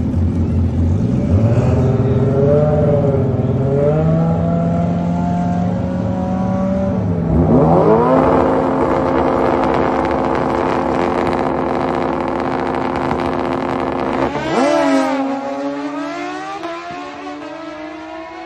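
Drag-racing motorcycle engine revving. It climbs in pitch, then holds high steady revs, then about three-quarters of the way in drops sharply and climbs again as it pulls away, fading steadily toward the end.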